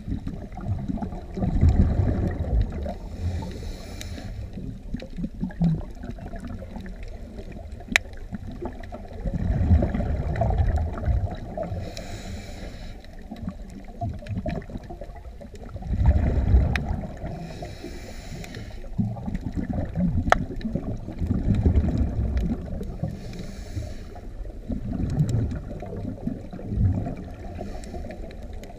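Scuba regulator breathing heard underwater: a short hiss of an inhale every five or six seconds, each followed by a longer low rumble of exhaled bubbles, with an occasional sharp click.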